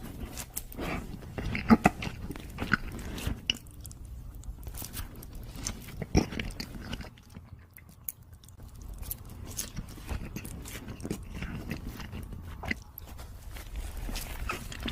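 Close-miked eating: bites and wet, sticky chewing of glazed donuts with jam and Nutella, a run of short mouth clicks and smacks that eases off for a couple of seconds midway.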